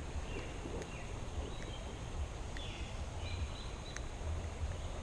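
Outdoor creekside ambience: a steady low rumble with a few short, high chirps scattered through it and a couple of faint clicks.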